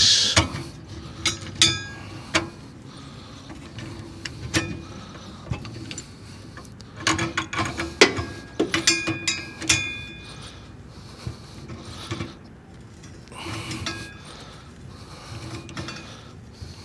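Steel pipe wrenches clicking, knocking and scraping on a gas valve and its threaded steel gas pipe as the valve is wrenched tight onto the gas line. Scattered metallic clinks with short ringing, with the sharpest knock about halfway through.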